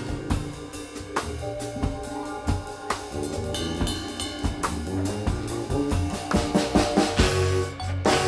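Live band playing without vocals: a drum kit keeps a busy beat of bass drum and snare hits under struck mallet-keyboard notes and a low bass line. The music grows louder and fuller in the second half.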